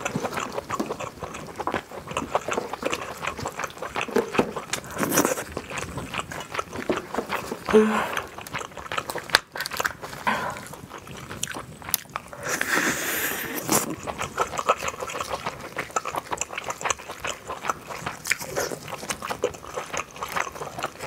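Close-up eating sounds of a giant king crab: gloved hands crack and pull apart the shell, and the mouth bites and chews the crab meat, giving many small crunches and clicks.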